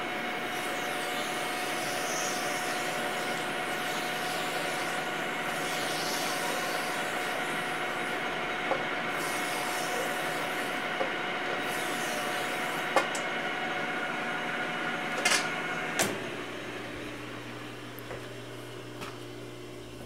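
A lathe spinning a drawing die while a hand drill runs an abrasive hone in its bore: a steady whine of motors with a grinding rub. About 16 seconds in the drill stops and a lower lathe hum carries on, with a few light clicks.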